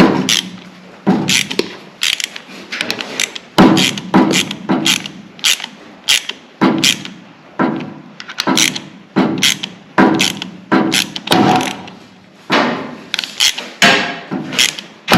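Repeated sharp knocks and clicks of hand tools on a battery cable end and its terminal, irregular strikes about one or two a second.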